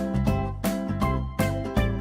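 Upbeat background music with a steady beat: plucked notes over a bouncing bass line.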